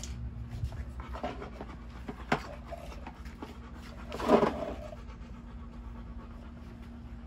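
A dog panting, eager and waiting for her food bowl, with one short, louder sound a little after four seconds in.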